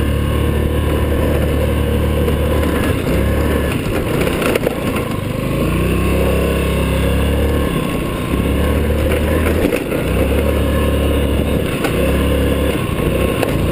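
Yamaha Riva scooter engine running under varying throttle while riding off-road, its pitch rising and falling several times.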